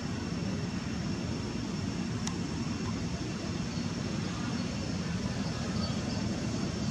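Steady outdoor background noise: an even low rumble, with a faint steady high-pitched whine over it.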